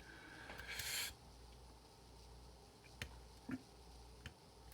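Faint scraping and sharp clicks of a lock pick and tension wrench working the pins of a pin-tumbler challenge lock. A few distinct clicks come about three to four seconds in, the sound of pins setting as the plug turns slightly. A brief rushing noise comes just before a second in.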